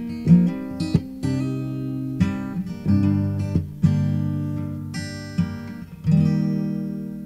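Solo acoustic guitar strumming chords. A last chord struck about six seconds in rings out and fades away.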